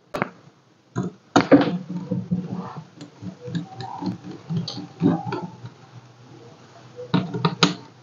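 Clicks and knocks of a screwdriver and a laptop's metal hinge bracket being handled as the hinge screws are driven back in. There is a loud cluster of clicks about a second and a half in and another near the end.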